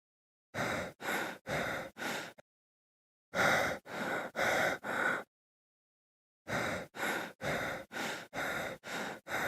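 A person's heavy, rapid panting, about two breaths a second, in three runs separated by short silences: four breaths, four more, then a longer run.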